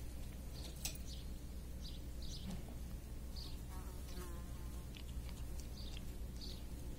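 A fly buzzes past for about a second near the middle, over repeated short high chirps of small birds and a steady low hum.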